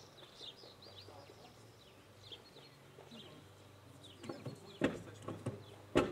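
Small birds chirping faintly in the background, then a few sharp knocks in the last two seconds, the loudest one right at the end.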